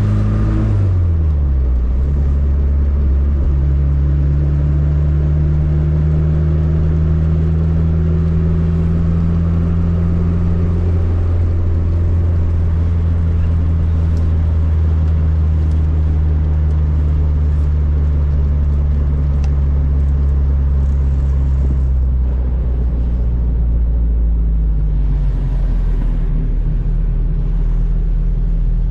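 Swapped 1.6-litre Fiat engine in a Fiat 600 pulling at motorway speed. The revs drop sharply just after the start, then the engine holds a steady note that climbs slowly. About three quarters of the way through the note softens, then picks up again about three seconds later.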